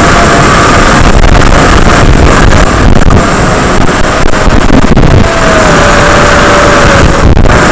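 FPV quadcopter's 3000KV brushless motors and propellers in flight, heard as a loud steady roar with a thin whine that shifts in pitch as the throttle changes.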